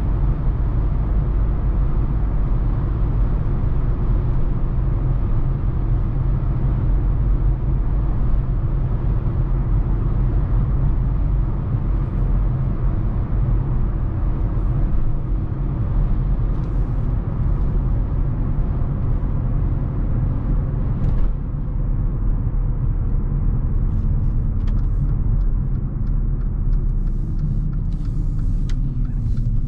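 Heard from inside the cabin, the 2015 Mercedes-Benz GLA250's turbocharged 2.0-litre four-cylinder petrol engine and its tyres make a steady low rumble on the move. About 21 seconds in there is a brief knock, after which the sound eases slightly, with faint light clicks near the end.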